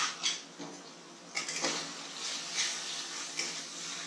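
A spatula scraping and knocking against a steel kadai in a few short strokes, stirring spice powders into a frying onion-tomato mixture, over a steady hiss.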